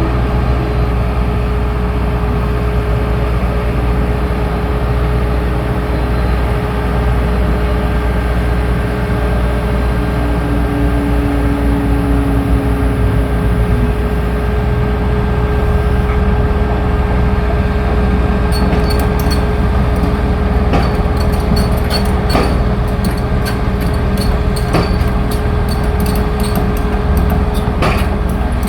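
An engine running steadily at an even pitch. In the last third, a run of sharp clicks and taps plays over it.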